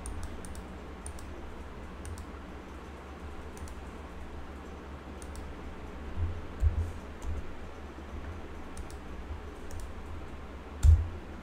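Computer keyboard keys clicking sparsely, a few at a time with pauses, over a steady low hum; a heavier thump comes near the end.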